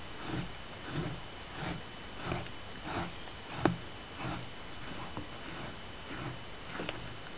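Hand scraper being pushed over a deer hide in steady strokes, about three every two seconds, scraping the thin membrane layer off the hide; the strokes grow fainter in the second half, with a sharp click a little past halfway.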